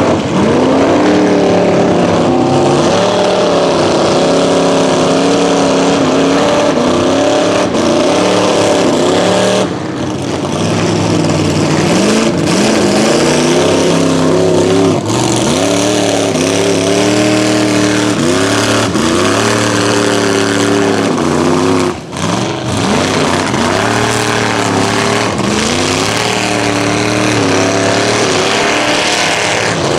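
Modified mud-bog truck engine revving hard at wide-open throttle while running through a mud pit. Its pitch rises and falls again and again, loud throughout, with brief drops about ten seconds in and again a little past twenty seconds.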